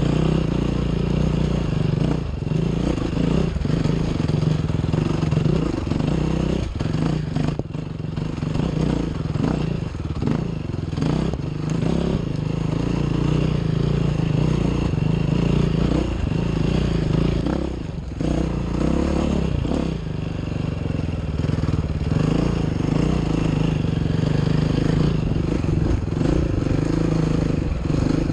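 Enduro dirt bike engine pulling under load up a steep, rocky climb, the throttle easing off and opening again several times.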